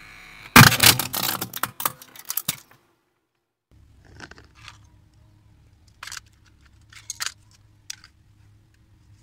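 Plastic toy handheld fan cracking and crunching under a car tyre, a rapid run of snaps lasting about two seconds. Then the broken plastic pieces clatter lightly a few times as they are handled.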